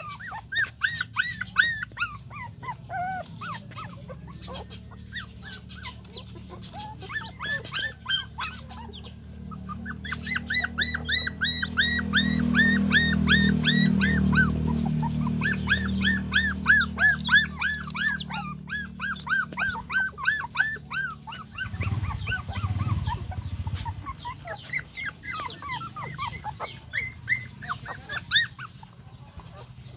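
Nursing puppies whimpering and squeaking in many short, high calls, several a second, thickest in the middle stretch, over a low steady hum.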